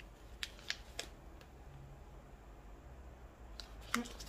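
A few light clicks and crackles of a vacuum-sealed plastic food pack being handled, mostly in the first second and a half, with a couple more near the end.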